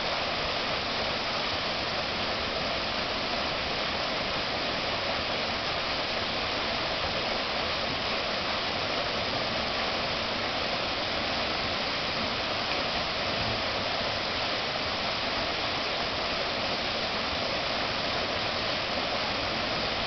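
Small waterfall pouring into a rock pool: a steady, unbroken rush of falling water.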